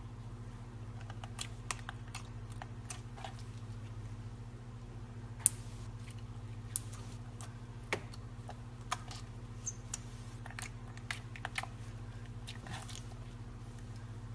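Hands kneading and poking a lump of slime, giving scattered sharp clicks and pops as air pockets burst, over a steady low hum. The two loudest pops come about five and a half and seven seconds in.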